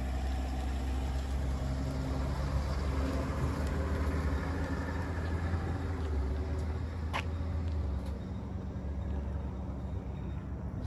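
A vehicle engine running with a steady low hum, its pitch shifting a little and easing off near the end. There is a brief rising squeak about seven seconds in.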